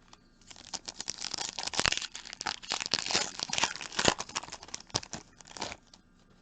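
Trading-card pack wrapper being torn open and crinkled by hand: a dense, crackly rustle with many sharp crackles lasting about five seconds, then stopping near the end.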